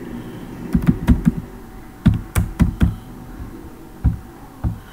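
Computer keyboard keys being tapped to enter a password: about ten sharp clicks in small clusters.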